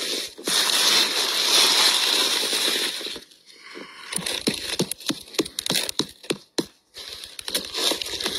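Dry fallen leaves rustling and crackling under a hand digging through the leaf litter to pick a porcini mushroom: a dense rustle for about three seconds, then after a short lull a run of sharp crackles and snaps.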